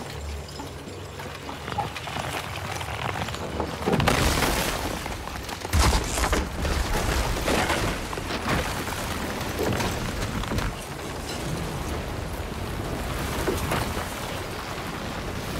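Lake ice cracking and breaking apart as a dragon's body is hauled up through it on heavy chains, with a low rumble under it: a loud crash about four seconds in and another near six, then ongoing cracking and scraping as the body slides out onto the ice.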